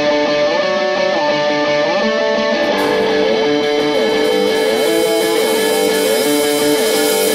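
Background music: a guitar-led instrumental with picked guitar lines winding over a long held note that comes in about three seconds in.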